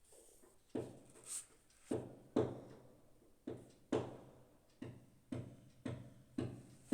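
A series of dull knocks or thuds, roughly two a second with a couple of short gaps, each one sharp at the start and dying away quickly.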